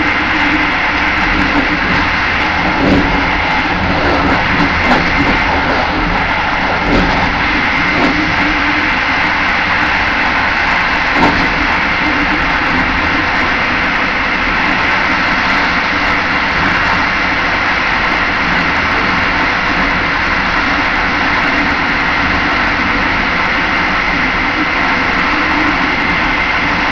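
Passenger train running at speed, heard inside its rear carriage: a steady rolling rumble with a high hum, and a few sharp knocks in the first dozen seconds.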